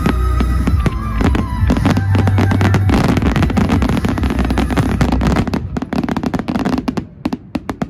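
Fireworks going off in a dense run of bangs and crackles, thinning out over the last couple of seconds and stopping near the end.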